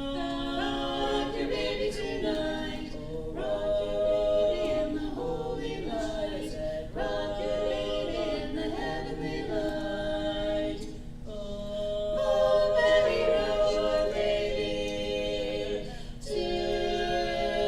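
A cappella vocal group singing a song in close harmony, held chords in phrases of a few seconds with short breaks between them.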